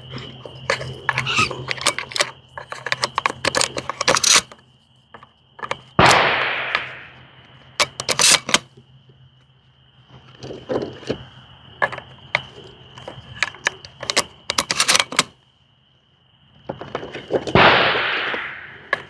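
Hatsan Bulltac semi-automatic shotgun being loaded and handled, with a run of sharp metallic clicks and clacks as shells go in and the action works. Two shotgun blasts ring out, one about six seconds in and another near the end, each echoing away over about a second.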